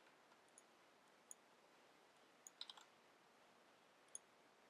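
Near silence, broken by a few faint computer keyboard and mouse clicks: single clicks, a short cluster a little past halfway, and one more click near the end.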